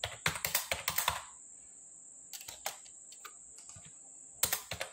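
Typing on a computer keyboard to enter a number: a quick run of keystrokes in the first second, a few scattered key presses in the middle, then another fast run near the end. A faint steady high-pitched whine runs underneath.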